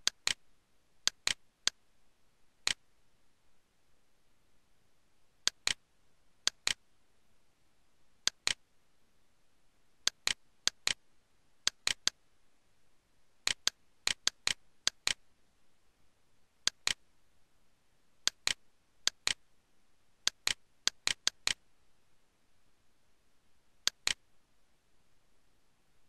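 Computer mouse buttons clicking, in single clicks and quick pairs at irregular intervals.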